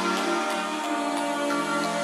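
Background music with sustained, held chords that shift every second or so.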